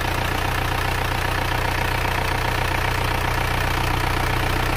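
Freshly rebuilt Isuzu diesel engine idling steadily, running soft and smooth, like a new engine.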